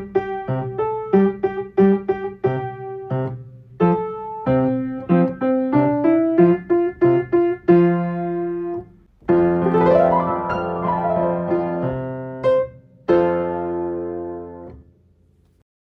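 Simple piano playing: repeated chords, then a rising line of notes, a sweep up and down the keys about ten seconds in, and a final held chord that fades away near the end.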